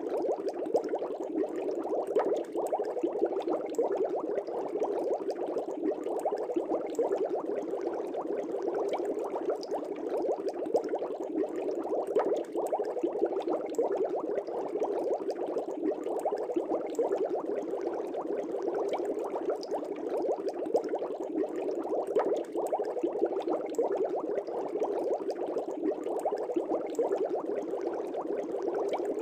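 Aquarium air bubbles rising and bursting at the water surface in a continuous dense bubbling, with many small pops and gurgles.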